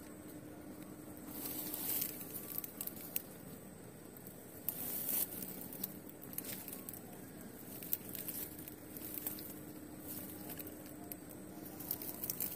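Rustling and crinkling handling sounds with scattered light clicks, over a faint steady hum.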